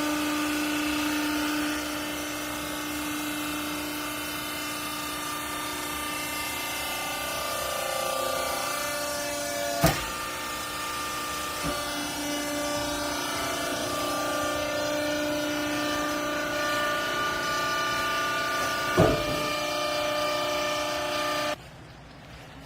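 Hydraulic baler's motor and pump running with a steady hum of several tones that shift in pitch a few times as it works. Two sharp knocks come about ten and nineteen seconds in, and the sound drops away suddenly near the end.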